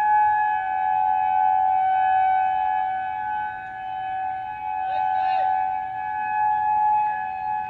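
Outdoor civil defense warning siren holding a steady pitch: the alert signal for a tornado warning. Its loudness swells and fades slowly, and a short run of high chirps cuts in about five seconds in.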